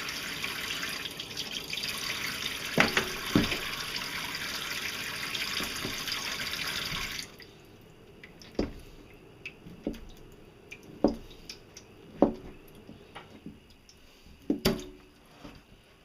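Kitchen tap running water over cooked taro as its skin is washed off, with a few knocks. The water shuts off about seven seconds in, leaving scattered knocks and clunks of handling in the sink.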